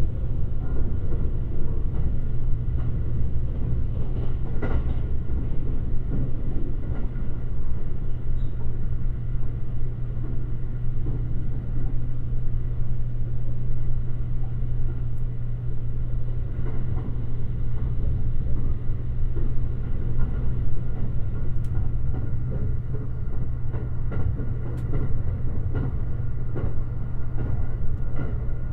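Limited Express Shirasagi electric train running, heard from inside a passenger car: a steady low rumble with a faint hum and a few scattered clicks from the wheels on the rails.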